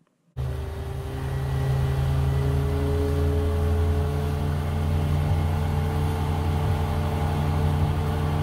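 Honda outboard motor running at cruising speed, a steady deep engine hum with a hiss of churning wake over it. It cuts in abruptly about a third of a second in and rises a little in pitch and level over the next second or so before holding steady.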